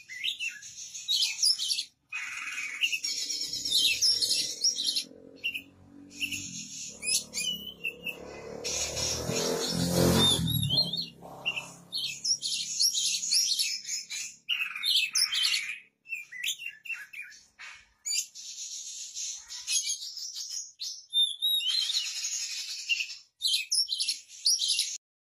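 Oriental magpie-robin (kacer) singing vigorously: quick phrases of high whistled and chattering notes, separated by short pauses. In the middle, a low rumble swells and fades and is briefly the loudest sound.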